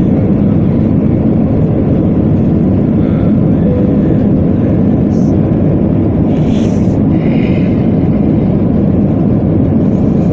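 Jet airliner's engines at takeoff thrust, heard from inside the passenger cabin as a loud, steady low roar while the plane lifts off and climbs.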